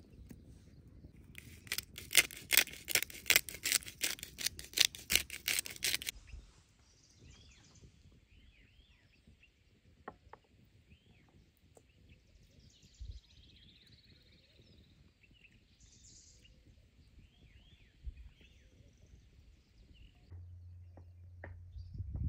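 A rapid run of sharp, scratchy strokes, about four or five a second, lasting some four seconds. Then small birds chirp and twitter, with a few soft knocks, and a low steady hum comes in near the end.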